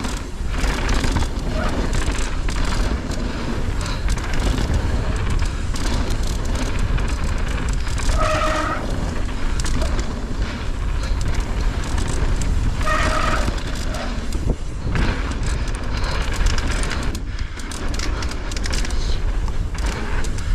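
Mountain bike riding down a rough trail: a steady low rumble of wind and rolling noise, with the bike rattling and knocking over bumps. Two brief high squeals come about 8 and 13 seconds in.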